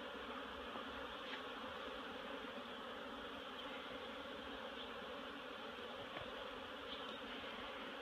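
Honeybees buzzing steadily as many fly around the entrances of several hives, a colony out flying on a mild winter day.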